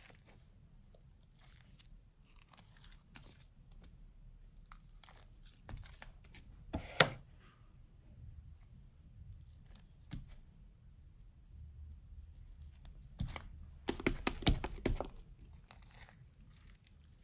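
Clay-mixed slime being handled: scattered crackly squishing and tearing sounds as it is pressed and pulled, with a sharp loud one about seven seconds in and a dense run of them a few seconds before the end.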